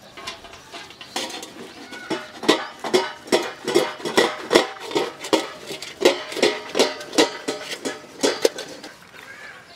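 Cheese being grated by hand on a flat stainless-steel grater that rests on a steel plate: quick scraping strokes, about three a second, with the grater and plate ringing at each stroke. The strokes start about a second in and stop shortly before the end.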